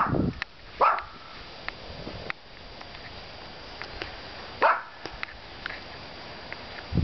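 Shih Tzu barking: two short, sharp barks, one about a second in and another a few seconds later, after a louder run of barking dies away at the very start.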